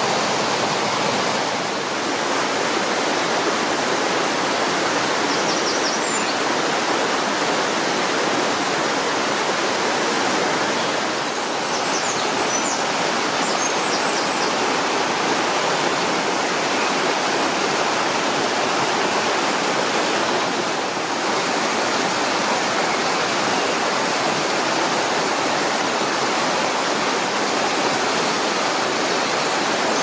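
Rocky river rapids: water rushing and splashing over boulders in a steady, full roar of white noise.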